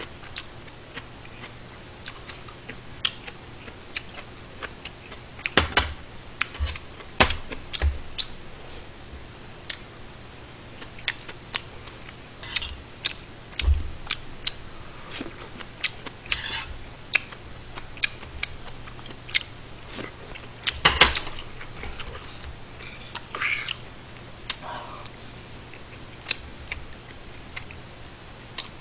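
Eating sounds from a bowl of stew and rice: irregular sharp clicks of a metal spoon and chopsticks against a steel rice bowl and pot, with chewing in between. The loudest clicks come around six to seven seconds in and again about two-thirds of the way through.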